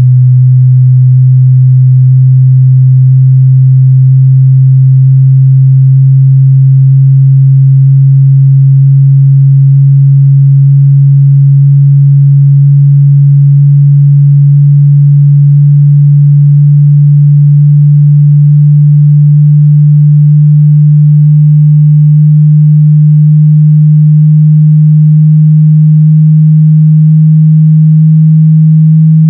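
A loud, low sine-wave test tone from a car audio sound-quality judging CD, held unbroken and gliding slowly and evenly upward in pitch: a slow sine sweep.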